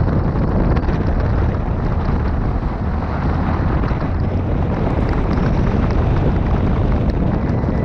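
Subaru rally car driving on loose gravel, heard from a camera mounted on the outside of the body: a steady, loud rush of wind buffeting the microphone over the engine and tyres on gravel.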